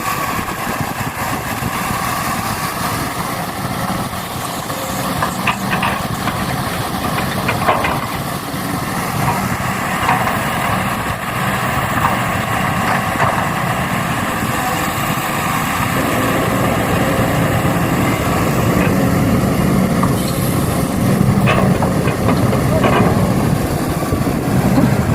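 Steady engine-like idling of a truck or excavator, growing a little louder and deeper about two-thirds of the way in, with a few sharp clicks.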